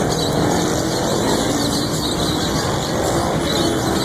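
Steady street noise with motor vehicles running past.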